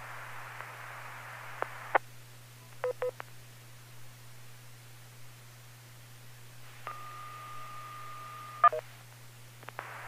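Radio audio with a steady hum and hiss, a few short clicks and blips, then a DTMF touch-tone held for about two seconds, ending in a short burst. These are the control tones sent to a ham radio remote base.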